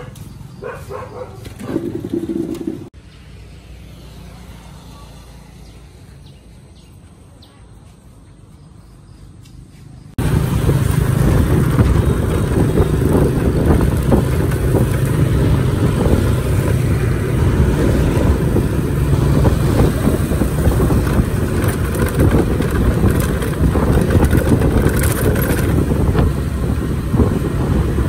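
Steady low noise of a moving vehicle that cuts in suddenly about ten seconds in, after a quieter stretch.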